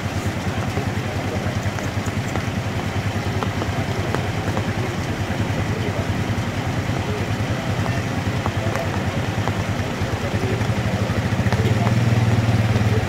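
Pickup truck's engine idling close by, a steady pulsing hum that grows louder near the end as the truck creeps forward.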